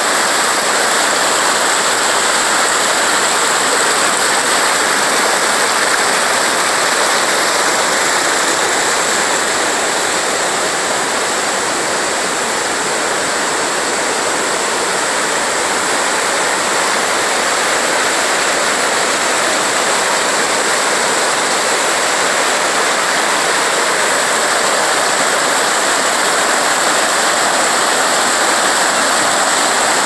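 Loud, steady rush of river rapids below a waterfall, an even hiss of tumbling water.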